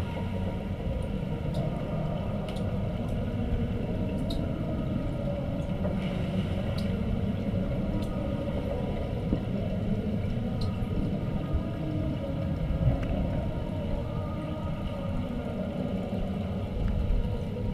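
Underwater ambience in a swimming pool: a steady low rumble with a faint steady hum and a few scattered light clicks.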